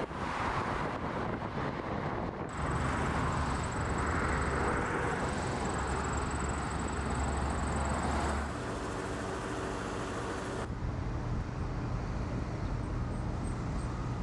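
Outdoor vehicle sound from several shots cut together: traffic passing on a wet, flooded highway, then a heavy machine's engine running steadily with a high whine, loudest in the middle, then quieter street sound near the end.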